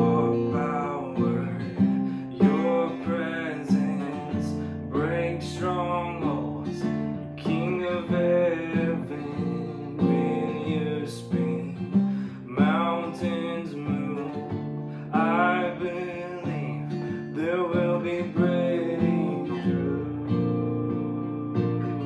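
Acoustic guitar strummed steadily, with a man singing a slow worship song over it in phrases.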